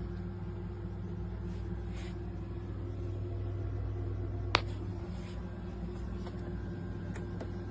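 Steady low hum with a single sharp click about four and a half seconds in.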